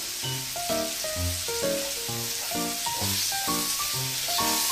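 Hiroshima-style okonomiyaki sizzling steadily on a flat iron teppan griddle, with background music of evenly paced notes, about two a second, playing over it.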